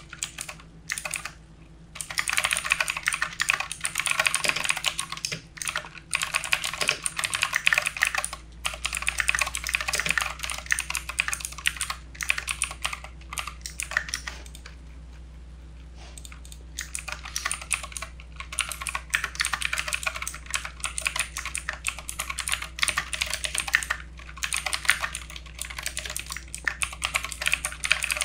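Continuous typing on a backlit computer keyboard: dense, quick runs of key clicks broken by short pauses, the longest about two seconds near the middle.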